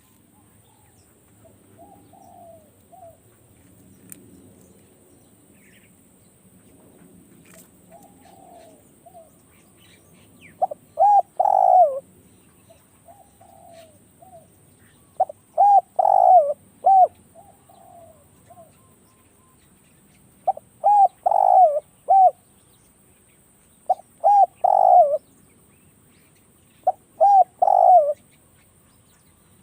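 Spotted doves cooing: one close dove gives five loud phrases of two or three coos each, about every four to five seconds, starting about a third of the way in, while a fainter dove coos between them.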